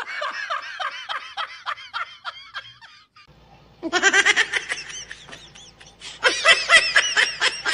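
A man laughing hard, in quick high-pitched bursts that fall in pitch, for about three seconds. After a short pause, more rapid fits of laughter follow.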